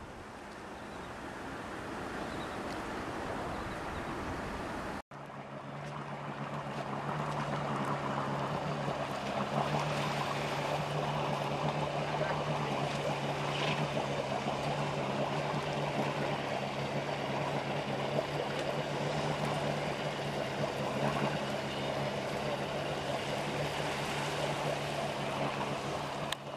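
Steady engine idle hum with water sloshing over it. The first five seconds hold only a rushing noise; after a sudden cut the engine hum comes in.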